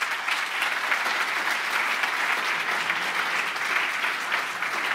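Audience applauding: many hands clapping steadily at the end of a talk.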